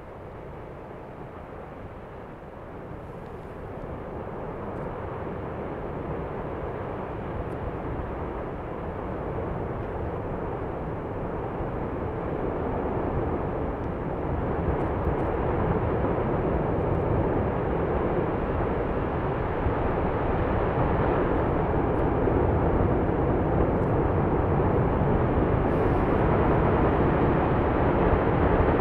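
Fagradalsfjall volcano erupting: a steady, rumbling roar of lava welling up, overflowing the crater and starting to fountain. It grows steadily louder as the lava jet rises, the build-up of one of its periodic fountaining episodes.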